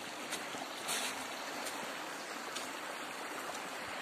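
Shallow stream running over stones: a steady rushing, splashing noise, with a couple of faint clicks.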